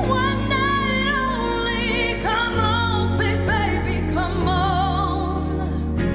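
A woman singing a pop ballad live with a strong wavering vibrato over a band backing whose bass line changes note a few times.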